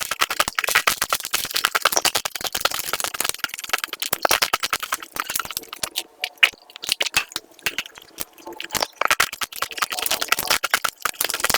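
Close-up crunching while eating crispy fried food: rapid, crackling bites and chews. The crunching eases off for a few seconds past the middle, then comes thick again.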